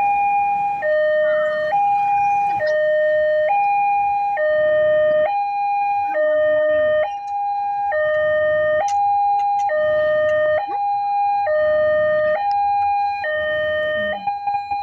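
Electronic warning alarm of an Indonesian railway level crossing, sounding loudly from the loudspeaker on the signal post: a high tone and a low tone alternating, each held just under a second, repeating steadily. It signals an approaching train while the crossing lights flash and the barrier closes.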